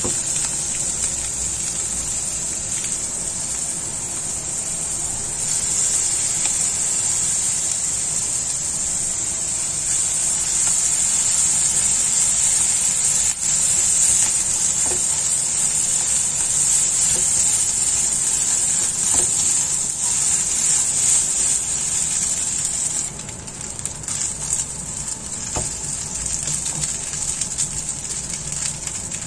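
Vegetables, egg and glass noodles sizzling in a non-stick frying pan as they are stir-fried with a plastic spatula: a steady frying hiss that eases about 23 seconds in.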